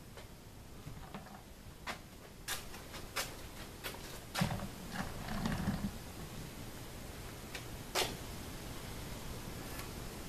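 Handling noise at a workbench: scattered light clicks and taps, with a short low rumbling bump from about four and a half to six seconds in.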